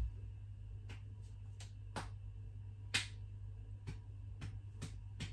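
A person slapping a belly by hand: about nine short slaps at uneven intervals, the one about three seconds in loudest, over a steady low hum.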